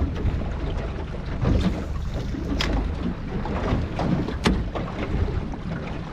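Wind buffeting the microphone and water lapping on a small boat, with a steady low rumble and two sharp clicks partway through.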